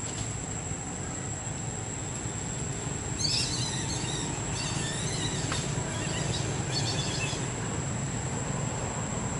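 Outdoor ambience: a steady low rumble with a thin, continuous high insect whine, and a few seconds of high bird chirping in the middle.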